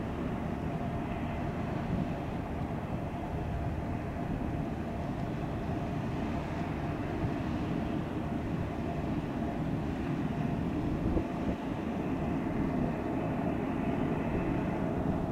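Diesel engine of an inland tanker barge passing close by, a steady low rumble with a faint steady hum in it, over wind and river water.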